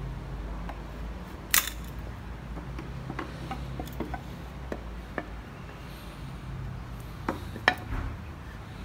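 Scattered sharp knocks and taps of pine boards and hand tools being handled and set down on a wooden workbench, the loudest about a second and a half in and near the end, over a steady low hum.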